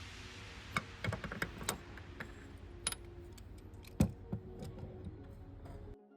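Background music over a low steady rumble, with scattered sharp clicks and knocks at irregular intervals; the loudest knock comes about four seconds in. Near the end the rumble and clicks cut off, leaving quieter music.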